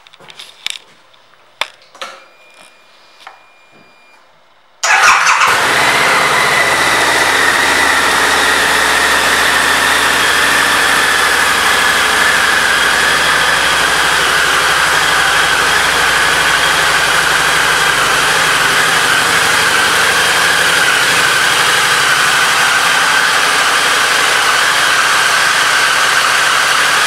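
A 2014 Harley-Davidson Night Rod Special's liquid-cooled Revolution V-twin starting about five seconds in, then idling steadily and loudly. A few faint clicks come before it starts.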